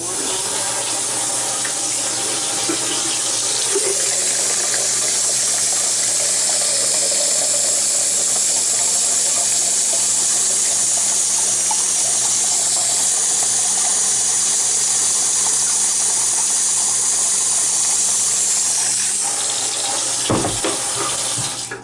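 Cold water running steadily from a kitchen tap for about twenty seconds, shutting off near the end with a few short knocks.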